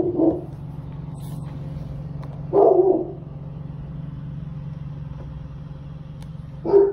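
Steady low hum of a car driving, heard from inside the cabin. Two short voice-like sounds break in, one about two and a half seconds in and a brief one near the end.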